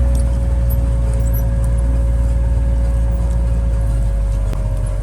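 A motor vehicle's engine running steadily, a loud low rumble with a steady hum above it.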